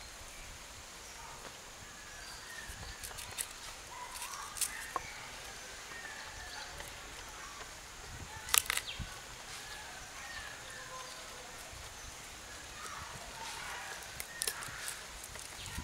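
Birds chirping in the background, with a few sharp clicks of a knife against a wooden board as garlic is cut; the loudest click comes about halfway through.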